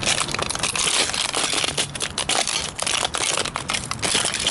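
A model toy car being crushed under Nike Air Max 90 sneakers on asphalt: a dense, continuous crackling and crunching of its pieces breaking and grinding underfoot.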